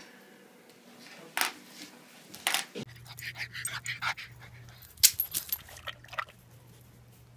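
Dog sounds mixed with scattered sharp clicks and knocks, the loudest about five seconds in, over a steady low hum that sets in about three seconds in.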